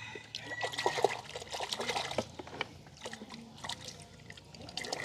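Water trickling and dribbling, with many small irregular splashes and drips.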